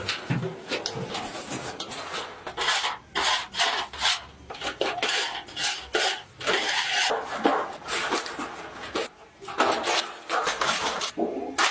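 Irregular metal scraping and clanking, with strokes of uneven length in quick succession, typical of a steel drum being worked by hand.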